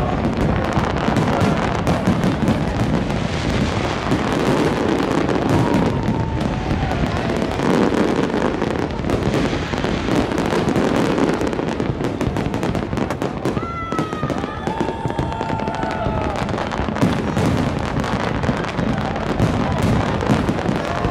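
A large fireworks display going off continuously: dense crackling and bangs with no pause, with voices of onlookers mixed in.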